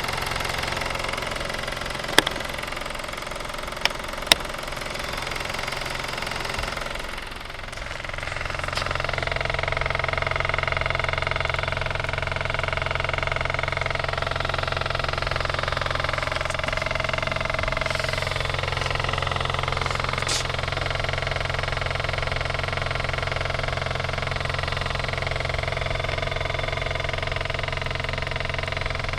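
2013 KIA Cee'd idling with a rattling, clattering noise, heard loudest under the driver's side wheel arch; the owner does not know its cause. A few sharp clicks come in the first few seconds, and the sound dips and changes about seven seconds in before running steadily again.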